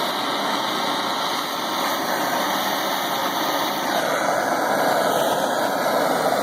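MAP gas torch flame burning steadily, a continuous rushing noise; about four seconds in it grows louder and brighter.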